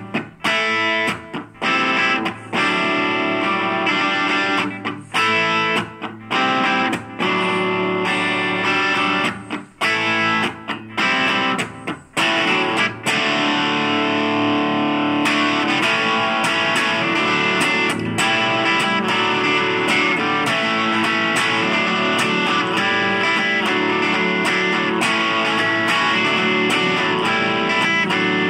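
Epiphone 1959 Les Paul electric guitar played through a small Blackstar Fly 3 watt amp: blues-rock riffs. For the first half the phrases break off with brief stops between them; from about halfway on the playing runs without a break.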